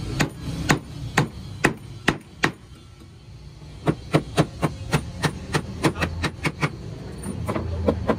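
Hammer driving nails into wooden boards: a series of sharp strikes, a pause of about a second and a half near the middle, then a quicker run of about three blows a second.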